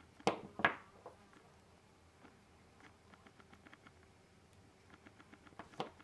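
Small metal parts and hand tools handled on a wooden tabletop: two sharp knocks about a third of a second apart just after the start, a run of faint light clicks, and another knock near the end.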